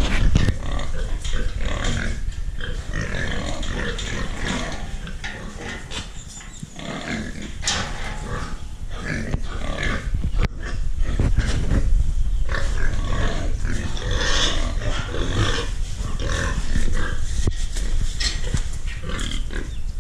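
Pigs calling, many short overlapping calls throughout, over a steady low rumble.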